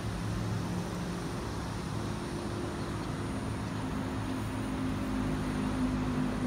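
A motor running steadily: a low drone whose pitch shifts a little partway through.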